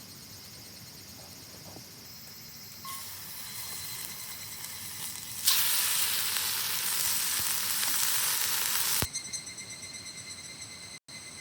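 A steady sizzling hiss that steps up about three seconds in, gets much louder about halfway through, and cuts off suddenly near the end.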